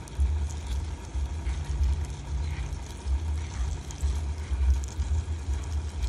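A low rumble surging unevenly, with faint scratchy clicks from periodical cicadas crawling over one another in a cup.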